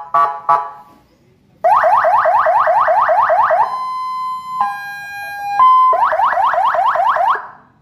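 Newly installed electronic fire-truck siren being tested through its tones. A few short beeps come first, then a fast yelp rising over and over, then a steady tone that drops to a lower one and back, then the fast yelp again, cutting off near the end.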